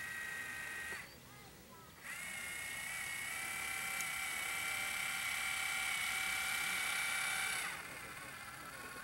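A small electric motor whining steadily at a high pitch. It cuts out about a second in, starts again a second later with a brief rise in pitch, and drops to a fainter whine near the end.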